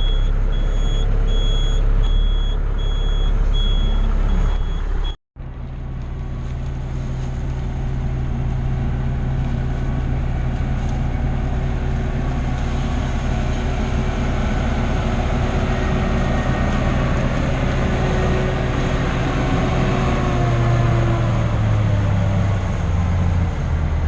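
Western Star semi truck's diesel engine running just after start-up, with a cab warning beeping steadily for the first five seconds while the air system builds pressure. After a brief cut the engine runs on steadily, its pitch stepping up and down near the end.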